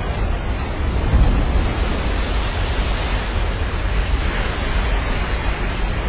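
Big breaking ocean wave and whitewater rushing steadily, with wind buffeting the microphone and adding a deep rumble.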